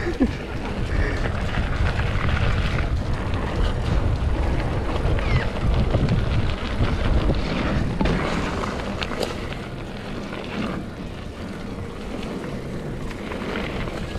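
A mountain bike ridden along a dirt trail: wind buffeting the microphone over tyre noise, with scattered clicks and rattles from the bike.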